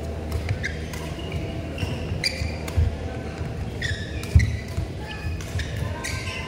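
Badminton doubles rally: sharp racket strikes on the shuttlecock, with players' shoes thudding and squeaking on the court mat, the loudest thud about four seconds in. A steady low hum of the hall runs underneath.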